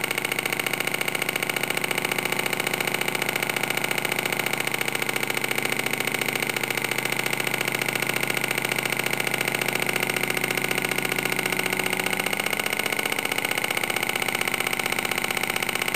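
Model Stirling hot-air engine running steadily at speed: a fast, even mechanical rhythm from its spinning flywheel and pistons, with a bright ringing tone high in the sound.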